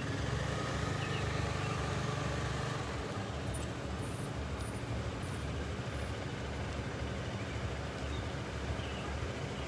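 Street traffic: a motor vehicle's engine running with steady road rumble, a little stronger in the first few seconds.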